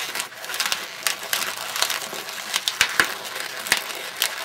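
Green 160 latex twisting balloon being twisted into bubbles and locked together by hand, the rubber rubbing on itself with an irregular run of sharp creaks and clicks, the loudest about three seconds in.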